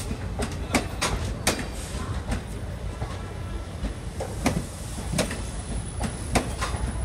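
Passenger coaches of an express train rolling past close by as it pulls out, steel wheels clacking sharply and irregularly on the rails over a steady low rumble.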